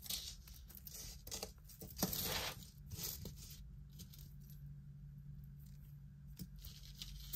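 Small metal jewelry pieces clicking and clinking as they are handled and set down, with a short rustle about two seconds in.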